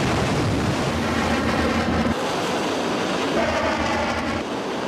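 F-18 fighter's jet engines at full power during a steam catapult launch from a carrier deck: a loud, steady roar that shifts in texture about two seconds in.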